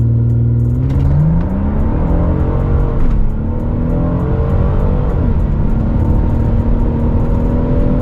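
Twin-turbo EcoBoost V6 of a tuned Ford Explorer, heard from inside the cabin, launched at full throttle from a brake-boosted standstill. The engine pitch climbs steeply, drops at an upshift about three seconds in, climbs again and drops at a second upshift a little after five seconds, then pulls on.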